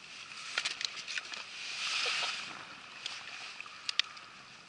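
Water sloshing around a kayak hull, with a swell of splashing about two seconds in, and a few sharp metallic clicks and knocks as a caught bluefish is handled with a metal lip gripper and pliers; the loudest pair of clicks comes near the end.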